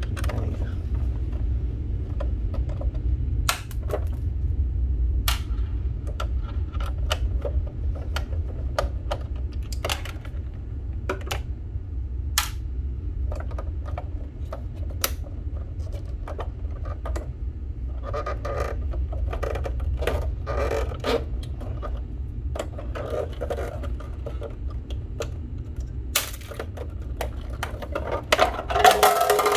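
Scattered clicks, knocks and light clattering of plastic and metal parts being handled while a water ionizer is disassembled, busiest in two spells in the second half, over a steady low rumble.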